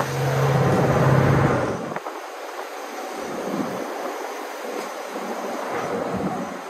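Car driving, with road and wind noise. A loud, steady low engine drone fills the first two seconds or so, then drops away, leaving the even rush of tyres and wind.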